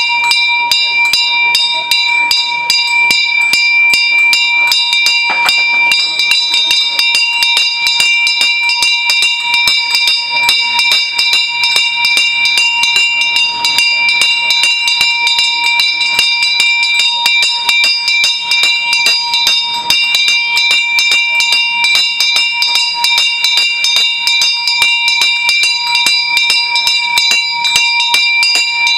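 Temple hand bell rung rapidly and continuously, the clapper striking many times a second over a steady, unchanging ring.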